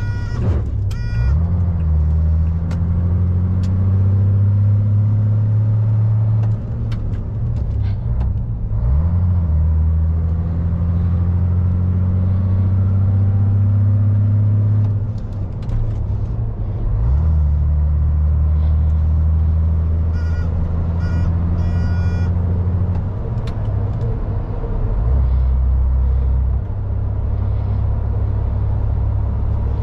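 Diesel engine of a 2001 MAN lorry running under load from inside the cab, its low drone climbing slowly in pitch and then dropping sharply at gear changes about 8 seconds and 15 seconds in, before holding steady.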